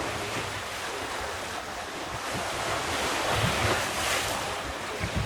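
Wind buffeting the microphone over the steady rush of sea water along the hull of a sailing ship under way, swelling and easing in gusts.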